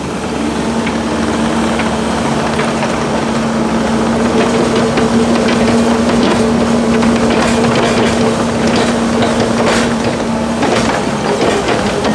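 A motor running steadily with a constant hum, which cuts out shortly before the end, over irregular scraping and knocking from soil being dug and moved.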